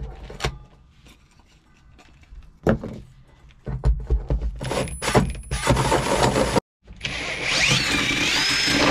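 Cordless drill driving a large hole saw down through a van floor. It starts with a few knocks, then cuts in loud bursts from about halfway, then runs steadily with a wavering high squeal near the end.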